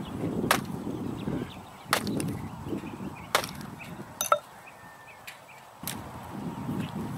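Hatchet chopping into a hard, dry pine stump: four sharp strikes, one every second or so, with low crunching noise between. Near the end, a rough rustle as the split wood is handled.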